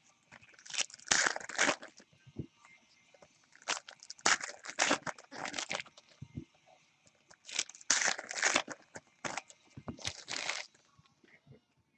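Plastic trading-card pack wrappers crinkling and tearing as packs are ripped open, in repeated rustling bursts that die away near the end.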